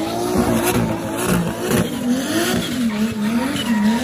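Drift car's engine revving up and down over and over, its pitch swinging roughly every half-second, as the car spins donuts with its rear tyres squealing and smoking on the asphalt.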